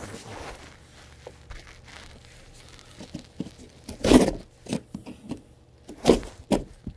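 Packing tape being torn and peeled off a cardboard shipping box, with rustling and knocks of the cardboard being handled. It is quiet at first, then a few short, loud rips and knocks come from about four seconds in.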